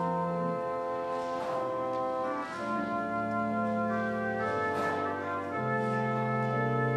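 Church organ playing a slow prelude of held chords, changing every second or so.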